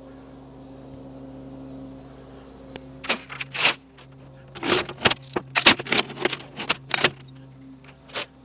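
Steel tie-down chains clanking and rattling, a string of sharp metallic hits from about three to seven seconds in, over a steadily idling engine.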